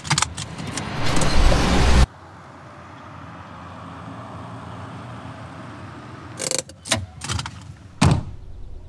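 Sounds of a small Renault Twingo hatchback in quick cuts. First comes a loud rush of noise with clicks that stops abruptly about two seconds in. Then a steady engine-and-tyre noise as the car drives along a road, followed near the end by door-handle clicks and a car door clunking open.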